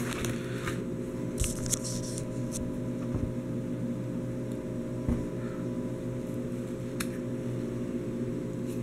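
Plastic binder sleeve pages being handled, with faint rustling and a few soft clicks scattered through, over a steady low electrical hum.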